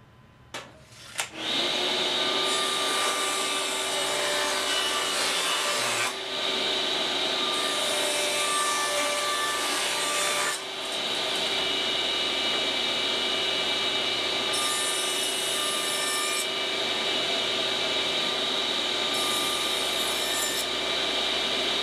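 Table saw running with its blade tilted, bevel-cutting 45-degree edges on a wooden top panel: a steady whine, with the rougher sound of the blade cutting through the wood coming and going four times. A few light clicks come just before the saw starts, about a second in.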